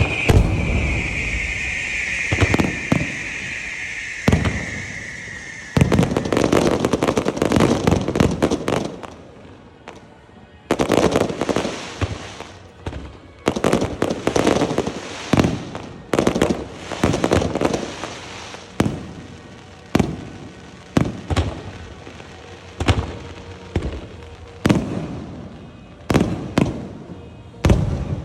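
Fireworks going off: a long, slightly falling whistle for about the first six seconds over bangs and crackle, then dense crackling volleys, and from about two-thirds of the way through a run of sharp bangs roughly once a second.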